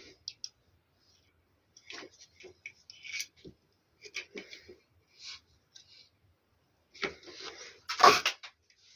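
Intermittent small clicks, scrapes and rustles of things being handled, with a louder rustling crunch about eight seconds in.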